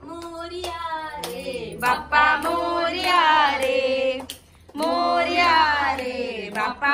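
Voices singing a devotional Ganpati song in long, wavering phrases, with a short break about two-thirds of the way in and a few hand claps.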